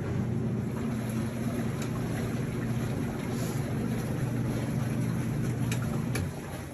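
Portable twin-tub washing machine running: a steady motor hum with a rushing noise over it, starting suddenly and stopping about six seconds in.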